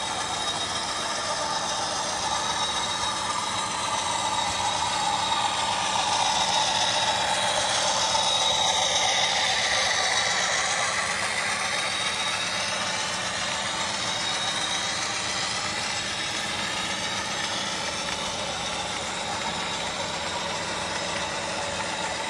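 OO-gauge model freight train running past: a Cavalex class 56 locomotive hauling Accurascale PTA wagons, its motor and many wheels rattling steadily over the track, loudest about eight to ten seconds in as the wagons pass closest, then easing off.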